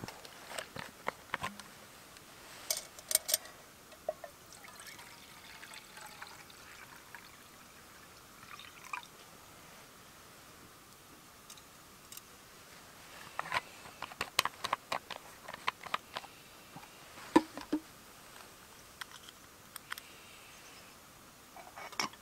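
Scattered sharp metallic clinks of a small metal cook pot being handled on a folding camp stove over a spirit burner, coming in short clusters with the busiest run a little past the middle.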